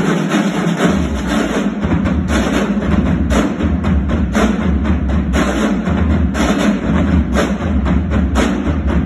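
Student drumline of marching drums playing a fast, loud, steady pattern, with deep low drum beats joining about a second in.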